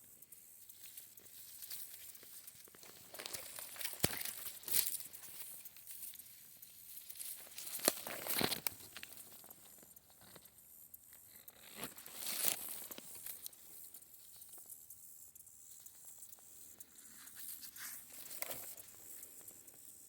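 Dry rice stalks rustling, crackling and tearing in irregular bursts as they are gathered by hand, with a few sharper snaps along the way.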